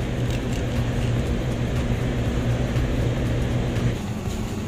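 A steady low mechanical hum with a rushing noise, which fades about four seconds in.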